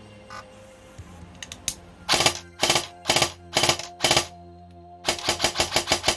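Evolution Airsoft M4-style electric airsoft gun's gearbox cycling as the trigger is pulled in burst mode. After a few faint clicks come five short bursts about half a second apart, then a longer, faster string of shots near the end.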